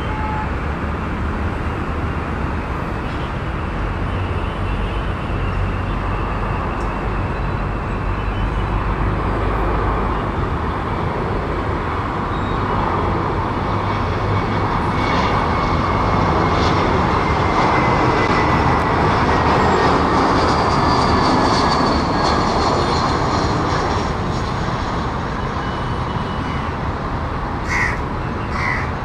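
Airbus A320's IAE V2500 turbofan engines on final approach: a steady jet rush that swells as the airliner comes close, with a thin whine slowly falling in pitch. A few crow caws come in near the end.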